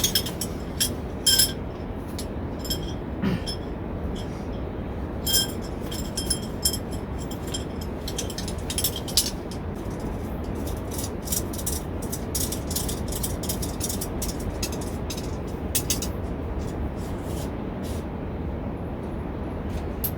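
Small clicks and clinks of camping gear being handled, some with a brief metallic or glassy ring, scattered over a steady low rumble.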